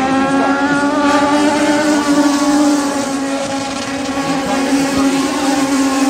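Race car engines running at speed around a paved short oval, a steady droning engine note whose pitch drifts slightly, swelling about two seconds in and easing off around four seconds.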